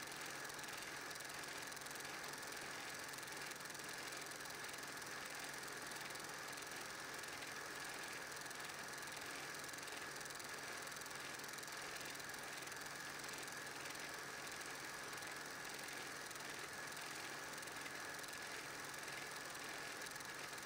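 Faint, steady running of a film projector playing silent 8mm home-movie film: a constant mechanical hum with hiss and a light fluttering clatter.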